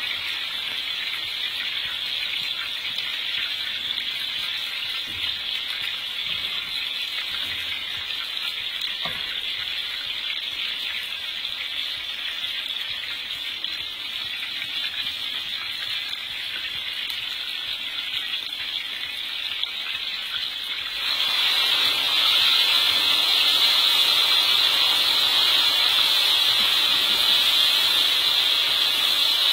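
Goat meat and spice paste sizzling in a hot wok as it is stirred, a steady hiss. About two-thirds of the way through, water goes into the wok and the sizzling becomes clearly louder.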